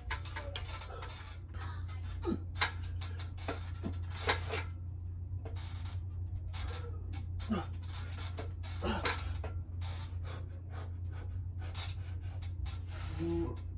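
A set of pull-ups on a freestanding metal pull-up tower: scattered clicks, knocks and rubbing from hands and the frame, with a few short grunts or strained breaths, over a steady low hum.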